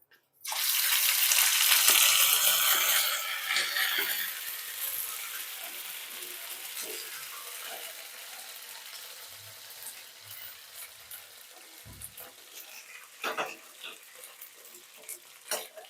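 Ground ginger paste dropped into hot ghee in a pan, sizzling loudly at once and then slowly dying down as the frying settles. A few short clacks come near the end.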